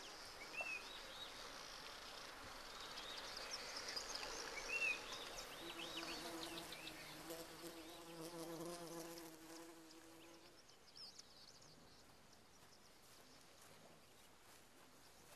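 A flying insect buzzing in a steady drone for about five seconds near the middle, after faint, short, high chirps.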